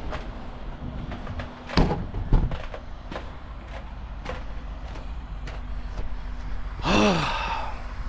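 A metal exterior door swings shut with a heavy thud about two seconds in, with a second knock just after and a few lighter clicks following. Near the end a man lets out a loud voiced sigh.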